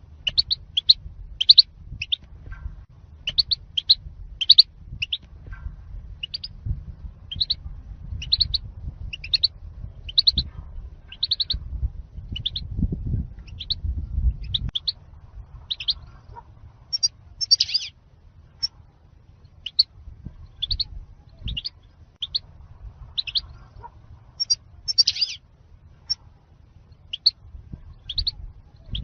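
European goldfinch calling: short, high chirps repeated about one to two a second, often in quick pairs, over a faint low rumble.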